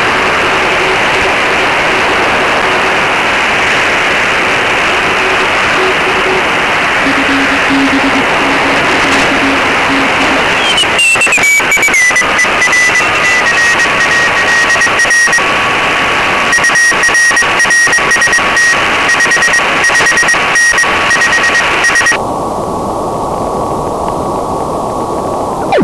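Receiver audio from an ANAN-10 (Hermes) software-defined radio in CW mode on the 30-metre amateur band, starting as a steady hiss of band noise. About ten seconds in, a tone glides down in pitch as the receiver is tuned, then settles into Morse code keyed on and off, with a steady carrier tone beneath it. Near the end the hiss turns duller as a narrower filter cuts off its upper part.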